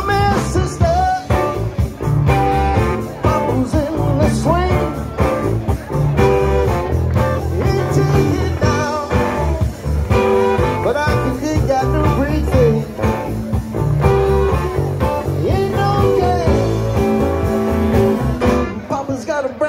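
Live rock band playing an up-tempo groove: electric guitars over bass and drums, with a steady beat and bending melody lines.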